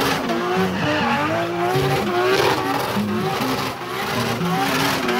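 Drift car engine revving hard, its pitch rising and falling again and again with the throttle, as the car slides sideways with its rear tyres spinning and squealing in clouds of smoke.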